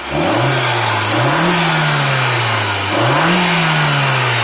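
Mk4 Golf GTI's 1.8-litre turbo four-cylinder being revved in throttle blips. A short blip comes at the start, then two bigger ones about a second and three seconds in, the revs climbing quickly and falling slowly back each time. This is how it should sound with the diverter valve's vacuum pipe to the wastegate actuator sealed and no leak, so there is no turbo flutter.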